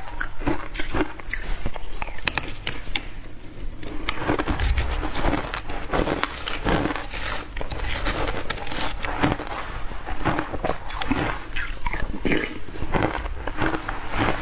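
Ice being bitten into again and again close to the microphone: a run of sharp, crisp crunches, one or two a second.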